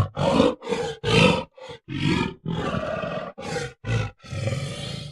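Gorilla roaring and grunting: about ten short calls in quick succession, a couple of them longer.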